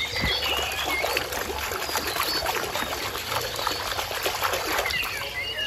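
Water splashing and sloshing in a plastic basin as a hand vigorously scrubs a small toy under the surface, a busy irregular patter of splashes that eases off near the end.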